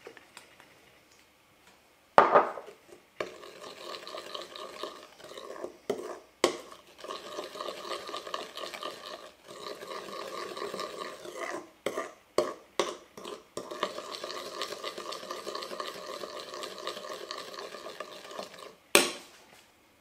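A kitchen utensil stirring and scraping around a pot or bowl in steady strokes, broken by sharp knocks against the vessel, the loudest about two seconds in and near the end.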